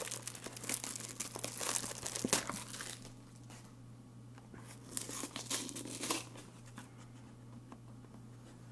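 Crinkling and tearing of Funko Mystery Minis blind-box packaging being opened by hand, busiest in the first three seconds, then only a few scattered crackles.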